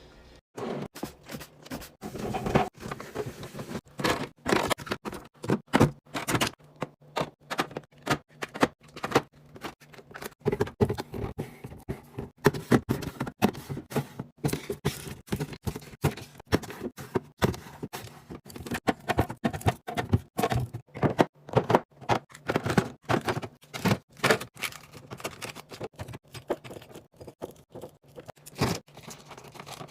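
Dense, irregular clicks, taps and knocks of containers and packages being handled and set down while a refrigerator is organized, with softer scrapes in between.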